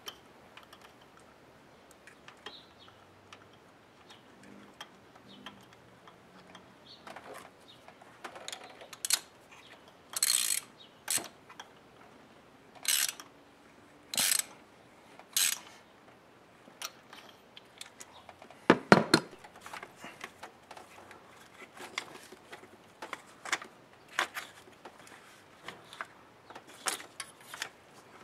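Hands working the plastic ignition coils and their connectors on a car engine: scattered clicks, scrapes and rattles, with a string of sharper clicks in the middle and one louder clatter about two-thirds of the way through.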